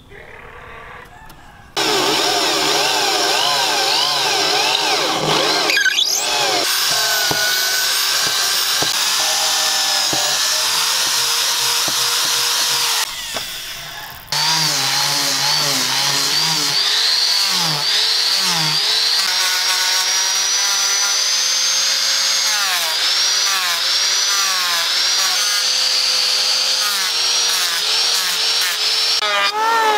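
Electric hand power tools working a hardwood axe handle. The motor starts about two seconds in and runs loud and steady, its pitch wavering up and down as it is loaded. After a short break about halfway through, an angle grinder with a sanding disc grinds the handle into shape.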